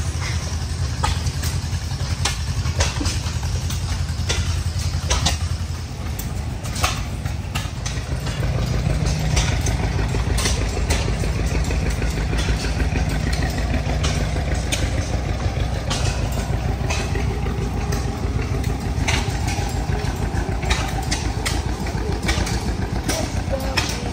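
A small engine running steadily, a little louder from about eight seconds in, with scattered sharp clicks over it.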